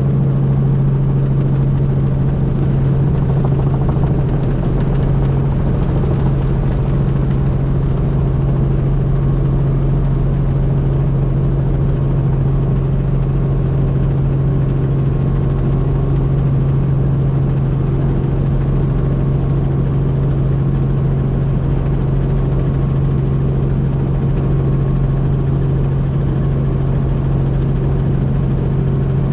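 Helicopter in steady flight: a constant, loud drone with a strong low hum that holds unchanged.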